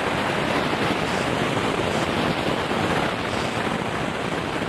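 Audience applauding steadily, a dense even clatter of clapping.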